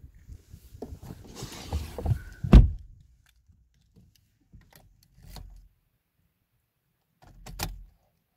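Rustling and handling noise inside a car ending in a loud thump about two and a half seconds in, then a few faint clicks. Near the end a sharp click with a short low thud as the ignition key is turned to switch the dashboard on.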